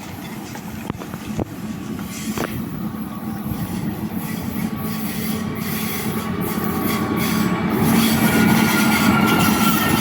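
Freight train approaching: a steady diesel engine drone and rail rumble grow steadily louder, with a few light clicks from the track.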